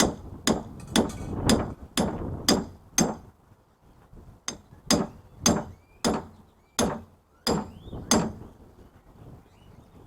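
Hammer blows on metal while tearing down a scrap electric motor for its copper, struck about twice a second. There are two runs of about seven blows each, with a short pause between them.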